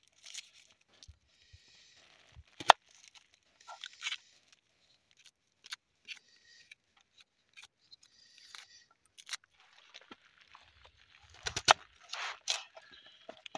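Kitchen knife peeling and cutting a red onion on a wooden chopping board: the dry papery skin crackles and tears, with sharp clicks of the blade. A cluster of louder knocks near the end comes as the blade cuts down onto the board.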